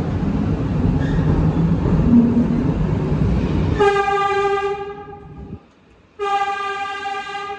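New York City subway train running through a tunnel with a loud low rumble, then two blasts of a subway train horn, each about a second long: the first about four seconds in, the second about two seconds later. The rumble fades away between the blasts.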